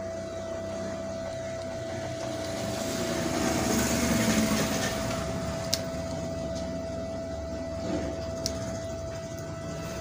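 A steady high-pitched electrical whine, with a rushing noise that swells and fades around the middle and a couple of sharp clicks from wiring work on a small circuit board.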